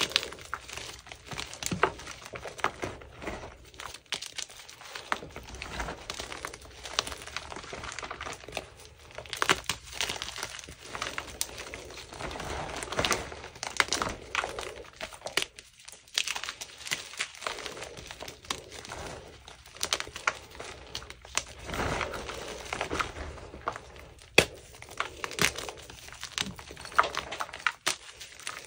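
Blocks of gym chalk crunching and crumbling as hands squeeze and knead them, giving many irregular sharp crackles over a softer, powdery crushing sound.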